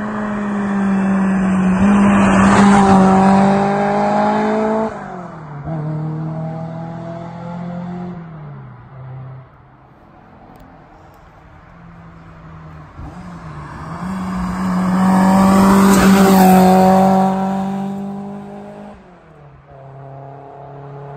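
Toyota AE86 Corolla with an HKS sport exhaust driving past twice under throttle. The four-cylinder exhaust note swells to a loud peak as the car goes by, then fades. The note drops abruptly about five seconds in and again near the end.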